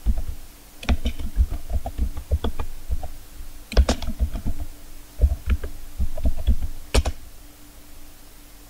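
Typing on a computer keyboard: irregular key clicks in quick runs with short pauses, stopping about seven seconds in.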